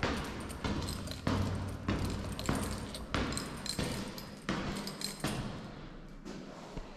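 A regular series of thumps, about three every two seconds, growing fainter near the end.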